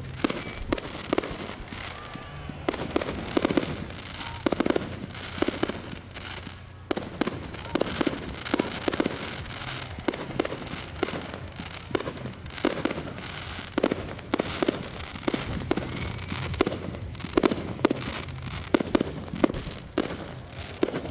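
Aerial fireworks display: shells bursting overhead in a rapid, continuous series of sharp bangs and crackles, often several a second.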